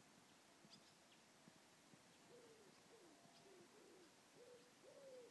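Faint cooing of a dove: a run of low notes, each rising then falling, starting about two seconds in. A few faint high bird chirps come before it.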